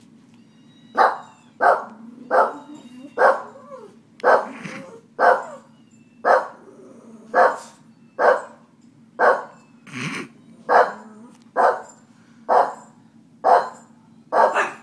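Boston terrier barking over and over in short, sharp barks, roughly one a second.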